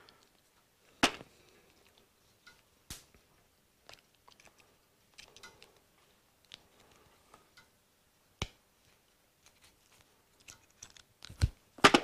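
Steel crimping pliers being worked and handled while a non-insulated terminal is crimped onto a wire: a sharp click about a second in, then softer clicks near three and eight seconds in, with faint handling ticks between.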